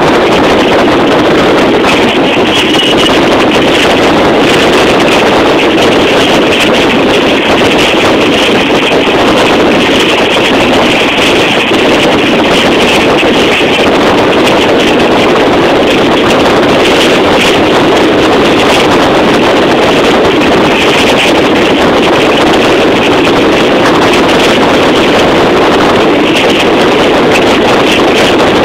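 Loud, steady rushing noise of a moving train heard from inside, mixed with wind buffeting the microphone.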